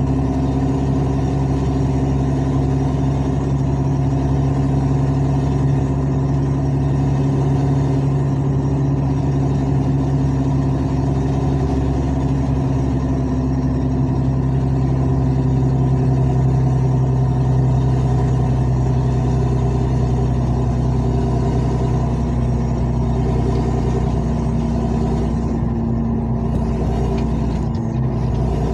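Truck diesel engine running steadily, its exhaust escaping loudly through a burst flexible exhaust pipe section, so it sounds nearly straight-piped. The engine note shifts and drops slightly about 23 seconds in.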